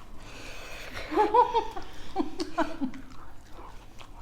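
A person laughing: a short run of pitched laughing syllables from about a second in to near three seconds, with faint clicks from the eating around it.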